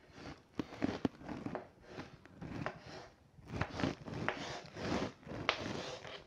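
Chalk scraping and tapping on a blackboard as a letter is written and a box drawn around it, in short strokes with brief pauses between them.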